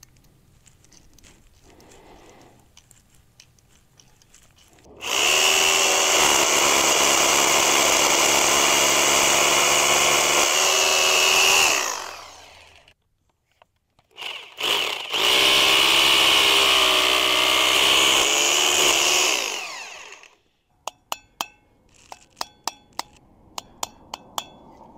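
Power drill boring into a concrete foundation wall for Tapcon screws. It runs steadily for about seven seconds, starts and stops briefly, then runs again for about five seconds. Near the end comes a quick series of sharp clicks.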